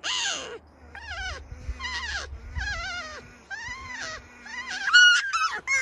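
Marmots calling: a run of about seven short, whiny calls that waver up and down in pitch, one after another, the loudest and highest about five seconds in. A low rumble of wind lies under the first few calls.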